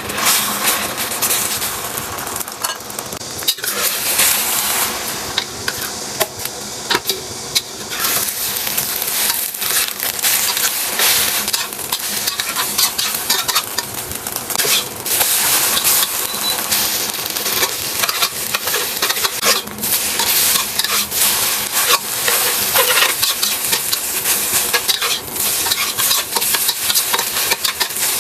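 Food sizzling and frying in a hot pan while it is stirred, with a utensil scraping and clicking against the pan throughout.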